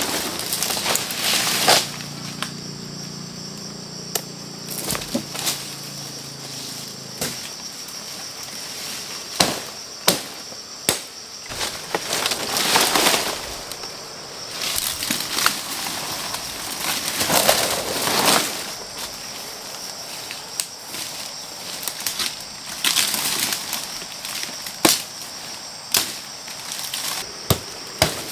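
Manual work: sharp knocks and cracks come every few seconds between rustling swishes, over a steady high-pitched drone. A low steady hum stops about seven seconds in.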